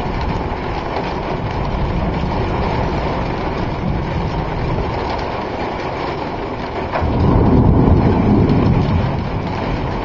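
Steady rushing storm wind, with a stronger gust about seven seconds in.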